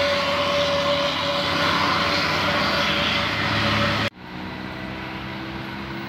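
Tour bus driving past, its engine and road noise loud with a steady high whine that fades as it moves away. About four seconds in it cuts off suddenly to quieter traffic noise with a low engine hum.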